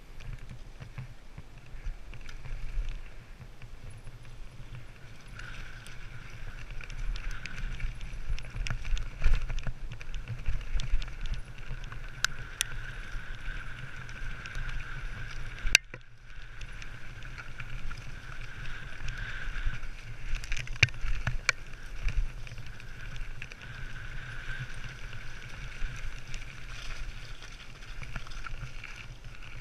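Mountain bike descending a rough dirt trail, heard from a helmet camera: a continuous rumble of tyres and wind, with scattered rattles and knocks as the bike goes over rocks and roots, and one sharp loud knock about halfway through. A steady higher whir comes and goes over it.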